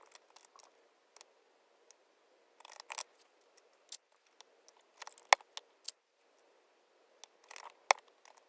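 Plastic keycaps being swapped on a mechanical keyboard: scattered light clicks and scrapes as PBT keycaps come off and go onto the switch stems. They come in small clusters, with one sharper click about five seconds in.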